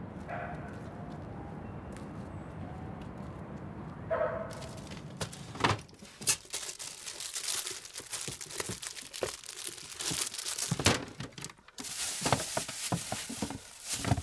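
Rummaging through dresser drawers: irregular rustling and crinkling of papers and small objects, with knocks of wooden drawers being pulled out and pushed around, starting about six seconds in. Before that, only steady low background noise.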